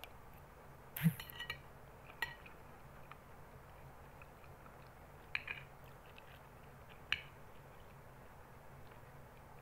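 Metal spoon clinking against a glass bowl of rice as food is scooped, four sharp clinks with a short ring, the loudest about a second in, over a low steady hum.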